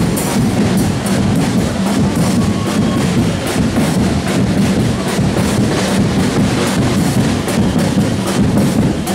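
Street parade percussion: several hand drums and a bass drum beaten together in a steady, continuous rhythm, with sharp wooden clicks among the strokes.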